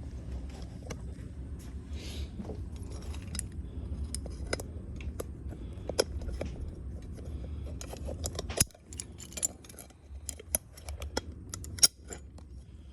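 Metal hardware clinking and jangling in a run of sharp clicks as the wrist wrench is unclipped and clipped onto a different attachment point. Under it runs a low steady hum that stops about eight and a half seconds in.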